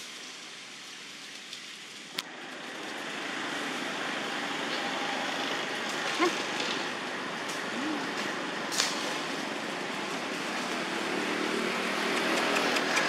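Outdoor background noise: a steady rush that grows louder about two seconds in, with a sharp click at that point and a few faint short sounds later.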